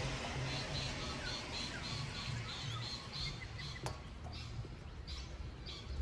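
Steady rain hiss with a bird chirping: a quick run of short, high chirps, about four a second, then slower, more spaced chirps in the second half. A single sharp tick comes about four seconds in.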